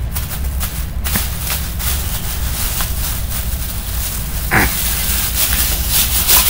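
Rustling and scattered clicks of cloth and handling close to the microphone over a steady low rumble, with a short high voice sound about four and a half seconds in.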